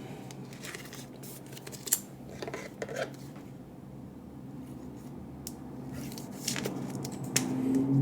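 Scattered sharp clicks and snips of trading cards and plastic packaging being handled, over a steady low hum.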